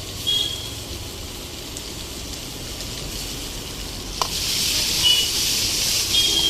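Sliced onions, garlic and green chillies frying in hot oil, sizzling steadily. There is a knock about four seconds in, and the sizzle grows louder after it.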